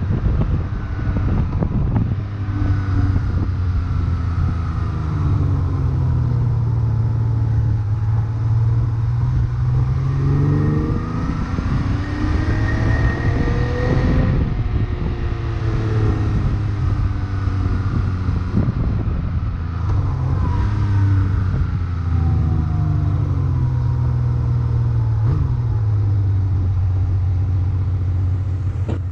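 Honda CBX motorcycle's inline six-cylinder engine running under way, its pitch climbing and dropping several times. Heavy wind noise on the microphone largely covers the exhaust note.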